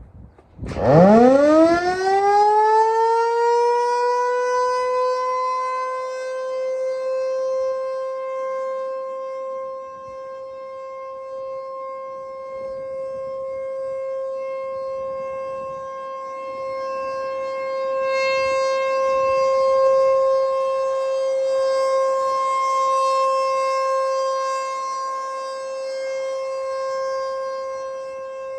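American Signal T-128 outdoor warning siren starting up for a test: about a second in its tone climbs quickly in pitch, then holds one steady note that slowly swells and fades in loudness.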